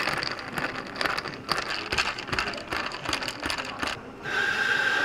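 A long metal bar spoon stirs ice in a tall glass, with quick irregular clinks and rattling of ice against the glass. About four seconds in, the stirring stops and Chilsung Cider, a lemon-lime soda, pours from cans over ice as a steady fizzing pour with a held ringing tone.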